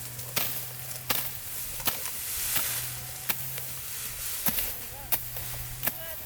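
Sickle cutting through rice stalks by hand, sharp cutting strokes coming about one every three-quarters of a second, over a steady low hum.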